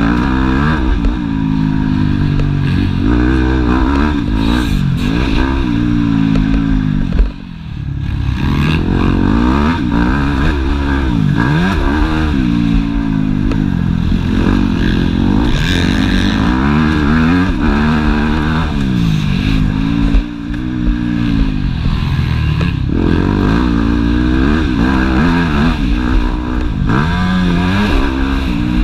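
Yamaha YZ250F single-cylinder four-stroke motocross engine heard from on the bike, revving up and falling back again and again as the rider works the throttle and gears. The throttle is shut sharply twice, about seven seconds in and again around twenty seconds, before the engine picks up again.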